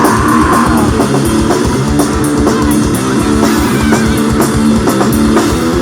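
Live rock music from a two-piece band: an electric guitar riff over a steady drum-kit beat, an instrumental passage with no vocals.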